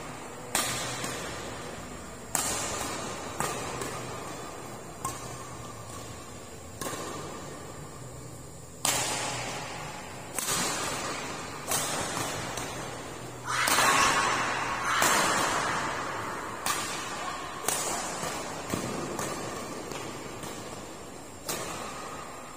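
Badminton rackets striking a shuttlecock in a doubles rally, sharp hits coming every second or two and echoing around a large hall. A louder, longer burst of noise comes about two-thirds of the way through.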